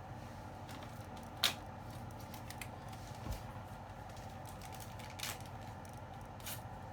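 A few small, sharp clicks and taps of hand tools and parts being handled at a repair bench, over a steady background hum. The sharpest click comes about one and a half seconds in, with a dull low knock near the middle.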